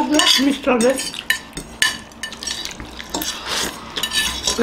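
Metal forks clicking and scraping on ceramic plates, over the wet hiss of noodles being slurped and eaten.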